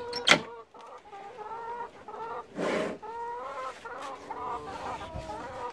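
Domestic hens clucking in a coop, a run of drawn-out, wavering clucks. There is a sharp click just after the start and a short noisy burst about halfway through.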